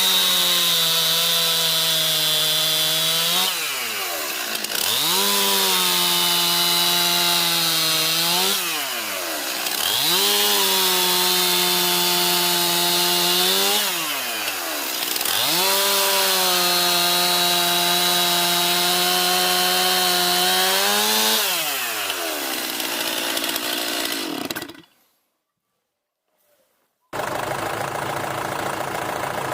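Chainsaw cutting wood: it is run up to full speed four times, several seconds each, and drops back to a low speed between cuts. Near the end it winds down, cuts out for about two seconds, then a steady engine idle starts.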